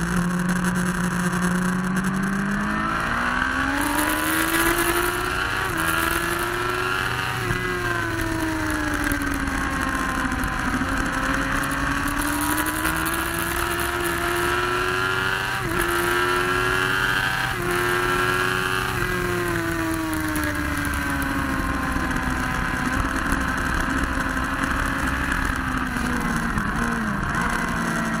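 Sport motorcycle engine under hard acceleration on a race track, heard from on board: the pitch climbs steeply a couple of seconds in, stays high with a few brief breaks, then falls slowly through the second half as the bike slows for a corner, over a steady rush of wind noise.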